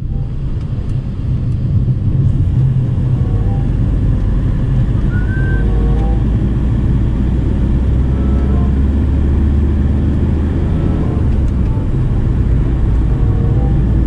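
Steady low rumble of a passenger van's engine and road noise, heard from inside the cabin while it drives.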